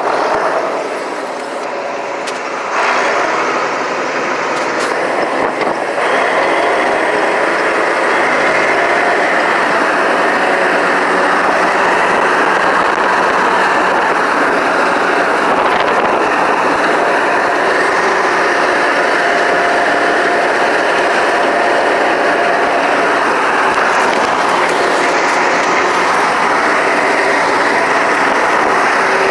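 John Deere 6600 combine running while harvesting corn: a steady, loud mechanical drone of engine and machinery. It steps up in loudness about three seconds in and again a few seconds later, then holds level.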